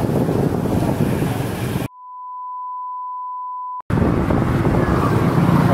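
Wind rush on the microphone and traffic noise from riding a two-wheeler through night streets. About two seconds in, all of it cuts out for a flat, steady electronic censor bleep lasting about two seconds, and then the road and wind noise comes straight back.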